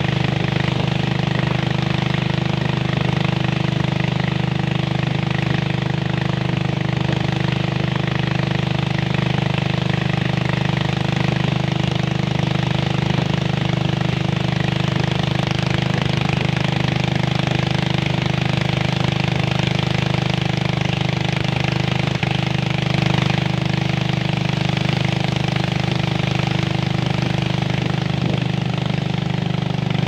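Small boat engine running steadily at cruising speed, propelling a narrow boat through the water, with a constant low drone that does not change in pitch.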